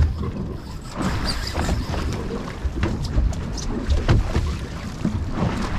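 Wind buffeting the microphone over choppy water slapping against the side of a small boat's hull, an uneven rumble broken by scattered knocks.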